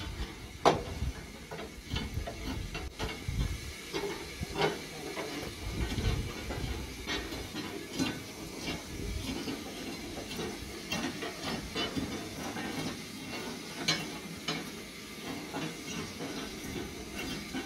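1921 Paul Frot Corpet-Louvet 0-4-0 tank steam locomotive hissing steam, with scattered metallic clicks and knocks, a sharp knock standing out about a second in.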